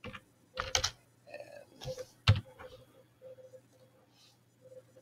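A few clicks and taps of a computer mouse and keyboard, the loudest a single sharp click a little over two seconds in, with a faint steady hum underneath.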